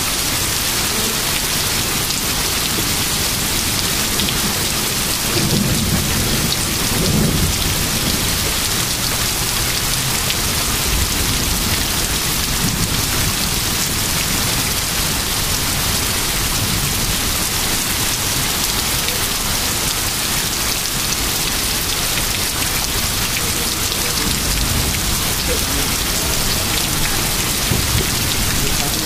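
Heavy rain pouring steadily on lawns, pavement and trees, with a low rumble of thunder swelling about six seconds in.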